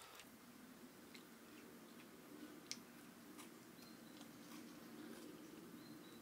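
Near silence: a faint low hum with a few soft, irregular clicks.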